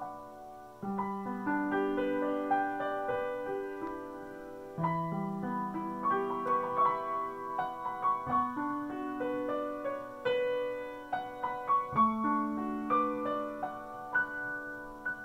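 Upright piano played by hand: a melody of sustained notes over low chords, with a new bass chord struck about every four seconds.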